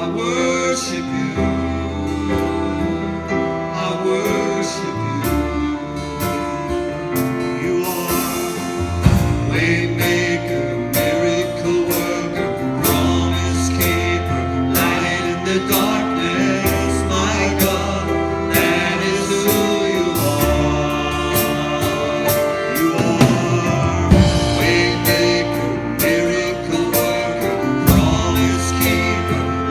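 A worship song playing: singing over a band with guitar, bass and drums, the drums coming in about nine seconds in.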